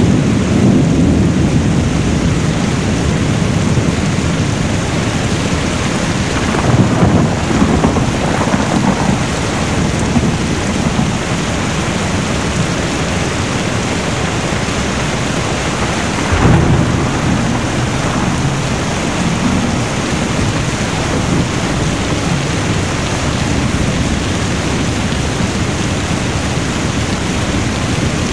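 Heavy, steady rain, with low rolls of thunder swelling about a quarter of the way in and again just past halfway.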